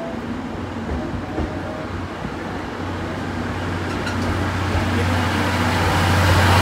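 Blue passenger coaches of a steam-hauled train rolling slowly past at close range as it pulls out of the station. The wheel and running noise carries a low, steady hum, and both grow louder through the second half.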